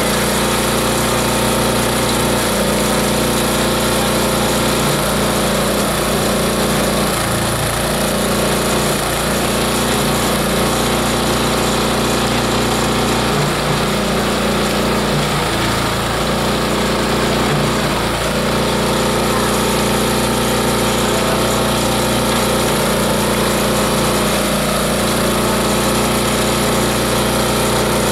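A multi-blade chopper-shredder running steadily with an even machine hum while dry grass is fed in and shredded.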